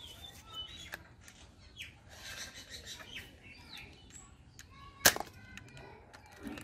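A green toy blaster gives a single sharp snap about five seconds in, over birds chirping and a few faint clicks.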